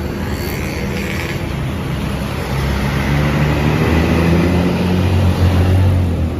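Bus diesel engine running, growing louder from about two and a half seconds in with its pitch rising slightly, then falling away just before the end as it passes.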